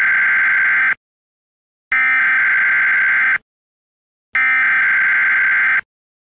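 Three identical electronic buzzing tones, each about a second and a half long, separated by about a second of silence.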